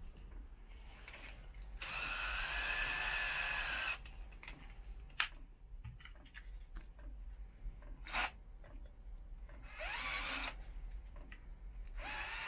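Ryobi cordless drill running: one steady run of about two seconds that rises in pitch as it spins up, then two shorter bursts near the end, with a couple of sharp clicks between. It is enlarging mounting holes that were too small to take a screw.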